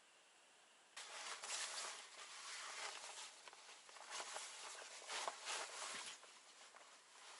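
Rustling of chest waders and clothing with small clicks and knocks as a shotgun cartridge belt is wrapped around the waist and fastened. It starts about a second in and eases off after about six seconds.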